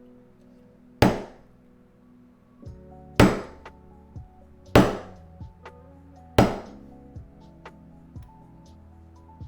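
Mallet striking a leatherworking tool, four sharp blows about one and a half to two seconds apart, over quiet background music.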